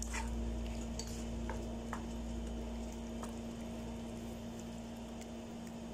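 Chicken pieces and chopped tomato sizzling in a nonstick frying pan, stirred with a wooden spatula that gives a few light clicks and scrapes against the pan. A steady low hum runs underneath.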